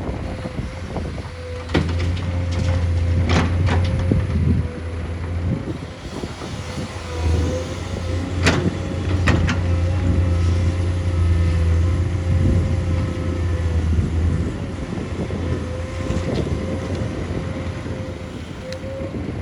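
Heavy diesel machinery running, its engine drone swelling twice under load, with a steady whine and a few sharp metallic knocks, the loudest about eight and nine seconds in.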